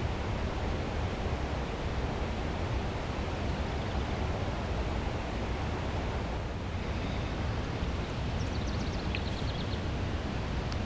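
Steady outdoor rushing noise, with a quick run of faint high ticks about eight and a half seconds in.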